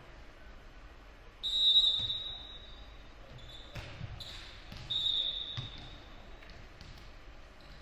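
Referee's whistle blown twice: a sharp, shrill blast about one and a half seconds in, which signals the serve, and a second about five seconds in that ends the rally. Between them the volleyball is struck with a few dull thuds.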